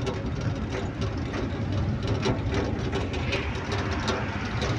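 Goods truck moving along a highway, heard from its open cargo bed: a steady low rumble of engine and road noise.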